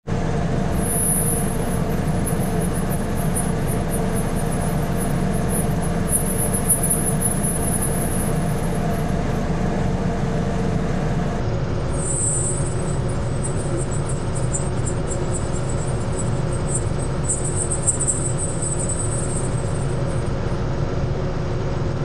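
Recording of supercooled water freezing into fine dendritic ice, pitch-shifted down an octave: a steady hum and hiss from the vacuum-evaporation setup, with clusters of faint, high crackling about a second in, around six to eight seconds, at twelve seconds and around seventeen to nineteen seconds. The maker takes the crackles for tiny ice dendrite arms cracking as the trapped water expands on freezing.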